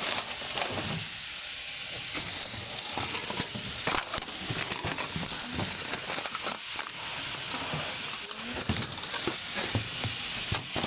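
Beef sautéing in a hot pan, sizzling steadily, with short clicks and scrapes of a utensil stirring it now and then.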